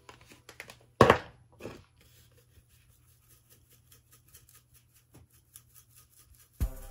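Seasoning shaken from a shaker onto raw pork chops in a glass dish: light clicking and tapping, with a loud clatter about a second in and a smaller one just after. Near the end a low thump comes in.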